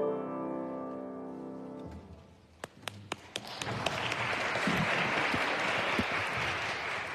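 Grand piano's final chord ringing and fading away over about two seconds, followed by applause that begins as a few scattered claps and swells into steady clapping, thinning out near the end.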